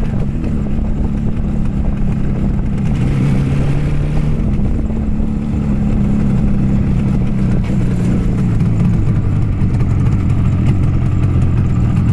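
Yamaha RD350's two-stroke parallel-twin engine running steadily as the motorcycle is ridden.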